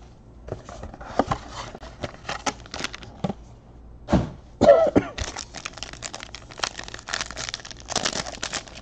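A trading-card box and its foil-wrapped pack being handled and torn open: irregular crinkling and crackling of the wrapper with light clicks and taps. There is a louder knock about four seconds in, followed at once by a brief pitched sound.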